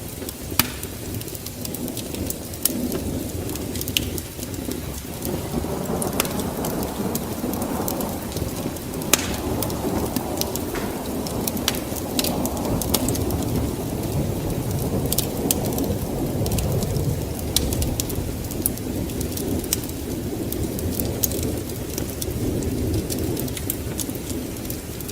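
Steady rain with a low rolling rumble of thunder that swells through the middle and fades near the end, and sharp crackling pops scattered throughout.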